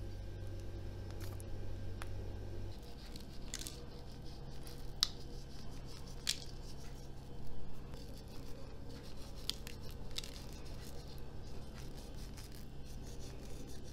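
Light kitchen handling over a paper-lined baking tray: sauce spooned onto rose pastries, then sesame seeds sprinkled on by hand, giving scattered faint ticks and scratchy rustles. A low steady hum runs underneath.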